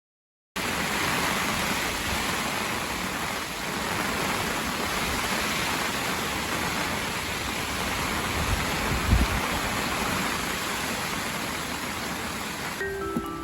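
Heavy rain pouring down in a storm, a steady hiss that cuts in abruptly after a moment of silence, with a low thump or two about nine seconds in. Near the end it drops away and light chiming mallet-percussion music begins.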